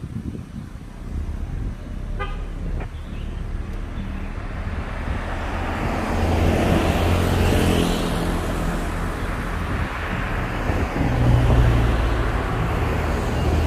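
Car driving along a road: steady engine and tyre noise that grows louder about halfway through and again near the end, with a short horn toot about two seconds in.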